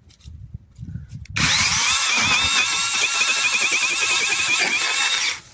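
Cordless brushless mini chainsaw starting abruptly about a second and a half in and running for about four seconds, its high motor-and-chain whine wavering in pitch as it cuts into a shrub branch, then stopping suddenly.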